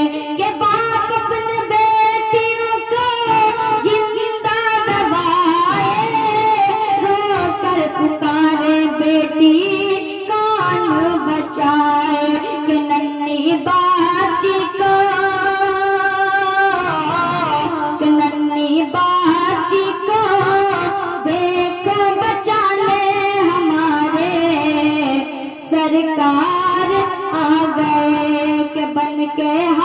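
A boy singing an Urdu naat, a devotional song praising the Prophet, solo into a microphone, drawing out long held notes that waver and glide from pitch to pitch.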